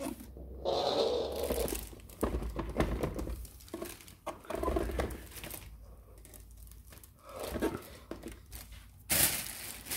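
Clear plastic packaging film crinkling and rustling in irregular bursts as a coffee machine is handled and unwrapped, with the loudest rustle near the end.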